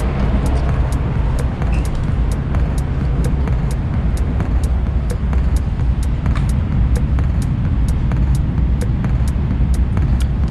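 High-speed train running at speed, a steady low rumble with a faint, even ticking about twice a second.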